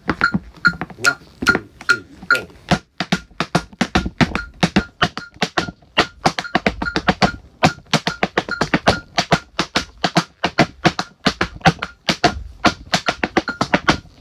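Tap shoes striking the floor in fast, rhythmic steps, over a metronome ticking at 145 beats per minute, about two and a half ticks a second.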